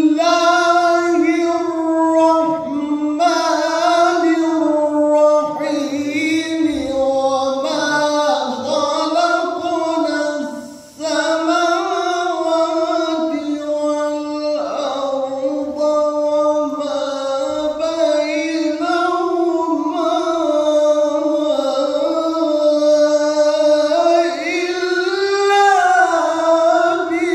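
A man reciting the Quran in the melodic qirat style: one voice holding long, wavering, ornamented notes in a high register, with a brief pause about eleven seconds in.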